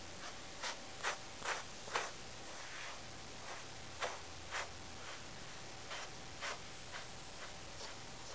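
Grooming brush stroking through a Siamese cat's fur: short scratchy strokes, a quick run of four in the first two seconds, then pairs with pauses between.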